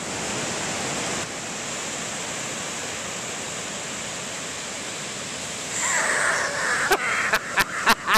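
Ocean surf breaking on a beach, a steady rush of noise. About six seconds in a brief brighter sound joins it, and near the end a quick run of sharp clicks or knocks starts.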